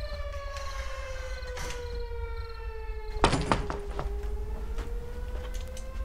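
Civil defense siren wailing, its pitch slowly falling and then rising again in the second half, over a low steady hum. A sharp, loud thunk about three seconds in.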